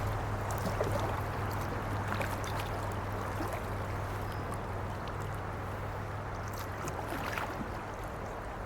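Rushing river water around a kayak running rapids, a steady wash that slowly fades, with scattered small splashes and knocks.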